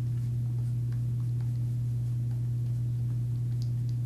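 A steady low hum throughout, with a few faint, light ticks of a paintbrush dabbing on canvas, the clearest near the end.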